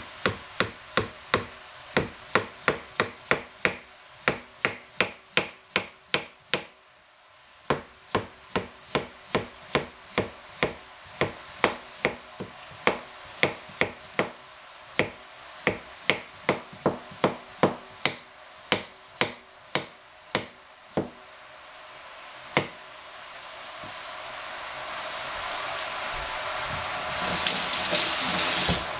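Knife chopping potato on a wooden cutting board in steady strokes, about two a second, with a short break about seven seconds in; the chopping stops after about twenty seconds, and a hiss then builds up louder through the last few seconds.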